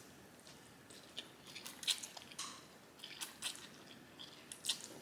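A person chewing food close to the microphone, with wet mouth clicks and smacks coming at irregular intervals.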